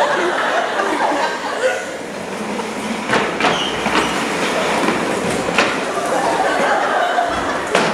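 Loud jumble of many voices and clatter, with several sharp knocks.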